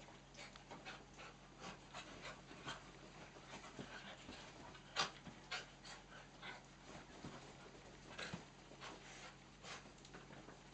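Small dogs, miniature dachshunds and cocker spaniels, panting as they play-wrestle together, with many short irregular sounds; one is louder about five seconds in.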